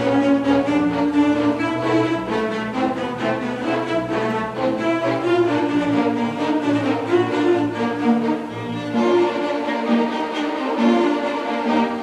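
A string orchestra of violins, cellos and double basses playing live, with bowed notes held and moving on without a break.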